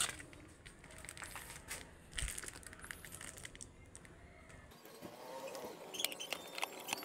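Clear plastic wrapping on a new panel air filter crinkling and crackling as it is handled. Sharper clicks come near the end.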